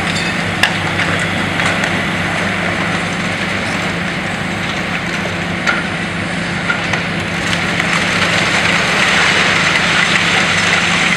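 High-reach demolition excavator's diesel engine running steadily under a constant hiss from the dust-suppression water spray, with a few small knocks.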